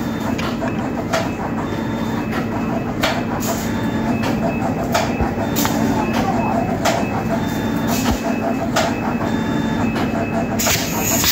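Pneumatic air cylinder of a homemade bulb-cap crimping press cycling repeatedly, about once a second, each stroke a short sharp hiss and clack, over a steady low hum.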